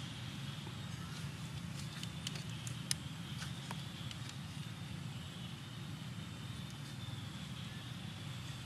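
Steady outdoor background noise: a low rumble with a faint high, even hum above it. A few small sharp clicks come about two to three seconds in.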